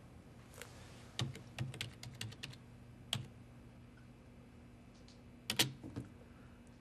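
Computer keyboard being typed on: a quick run of keystrokes, a single key about three seconds in, and a few more near the end, as a name is entered into the library's loan computer. A faint low hum runs underneath.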